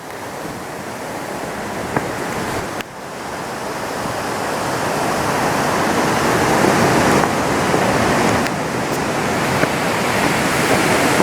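Waterfall rushing: a steady noise of falling water that drops suddenly about three seconds in and then grows gradually louder.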